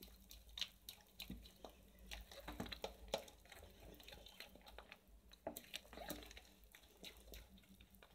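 Silicone spatula stirring thick cake batter in a plastic bowl: faint, irregular wet squishing and ticking.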